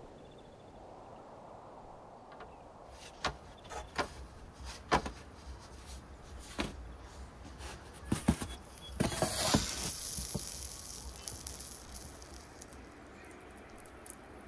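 Scattered sharp knocks and clicks a second or so apart, and a longer scraping, rustling noise about nine seconds in.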